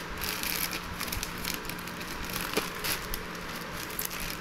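Clear plastic packaging crinkling and rustling in a steady stream of small crackles as it is handled and opened.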